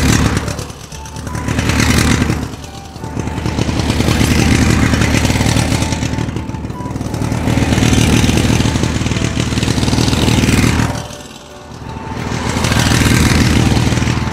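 Battery-powered ride-on toy motorcycle playing its engine sound effect from its speaker as the throttle grip is worked. The engine noise swells and fades: it rises near the start, dips briefly, then holds strong through the middle, drops away for a moment about eleven seconds in, and swells again near the end.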